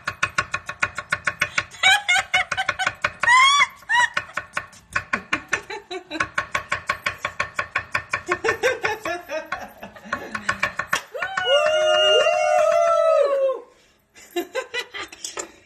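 A kitchen knife chopping a potato very fast on a cutting board, a rapid even run of sharp taps several a second, pausing briefly about 14 s in. Over it come excited high whoops and squeals from the onlookers.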